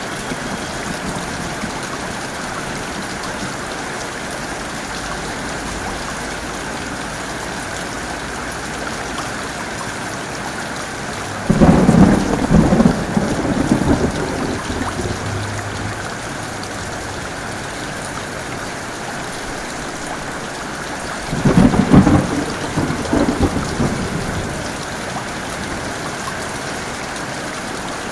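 Heavy rain falling steadily, with two thunderclaps about ten seconds apart, each breaking in suddenly and rumbling away over a few seconds.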